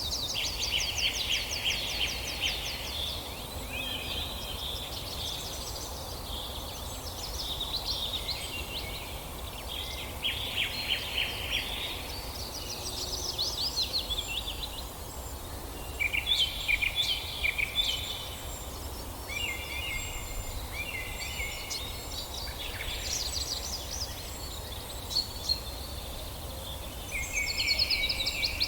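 Songbirds singing in a forest: short trilled and chirping phrases, one every few seconds, some quick rattling trills, over a steady low background rumble.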